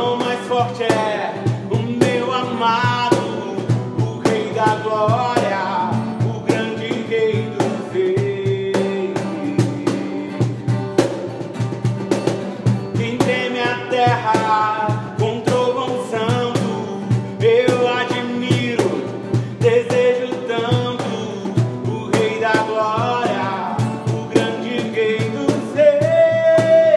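Worship song: a voice singing a melody over a band with bass and a steady drum beat.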